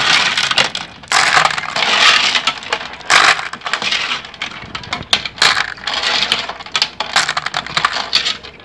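Clams being washed by hand in a metal pot of water: their shells clatter and rattle against one another and the pot in repeated surges, with water sloshing.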